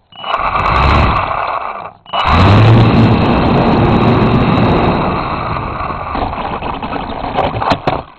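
RC model airplane's motor and propeller running at high throttle, with rushing air noise. It cuts out sharply about two seconds in, starts again a moment later, then slowly weakens before stopping.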